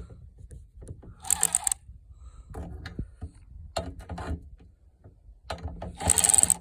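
Battery-powered ratchet running in two short bursts, one about a second in and a louder one near the end, with a few mechanical clicks in between.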